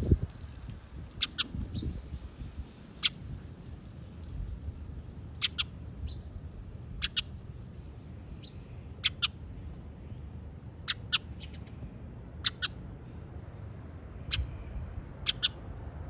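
Short, high 'pi' peeps from a pet animal, singly and in quick pairs every second or two, over a low steady rumble.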